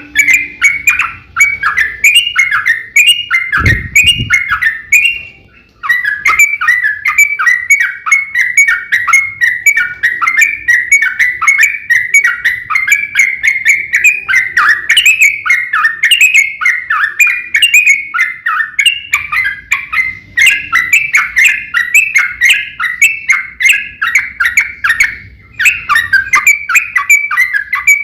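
Yellow-vented bulbul song: a fast, continuous run of bubbly, warbling chatter, with a brief pause about six seconds in. A low thump sounds once about four seconds in.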